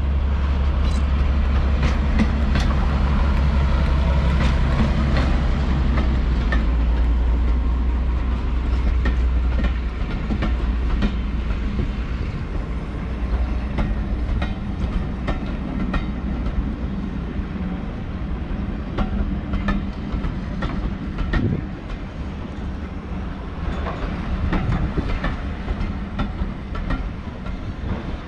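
British Rail Class 52 'Western' diesel-hydraulic locomotive D1015 passing close by. Its twin Maybach V12 engines give a steady low drone for about the first ten seconds. The drone then drops away and the hauled coaches roll past with a run of clicks from the wheels over the rail joints.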